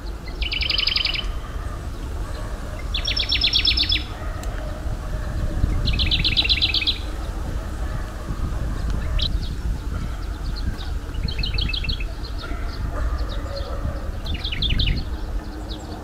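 Songbirds calling: three loud bursts of rapid, high, trilled notes in the first seven seconds, then softer, scattered bursts of the same kind. A steady low rumble runs underneath.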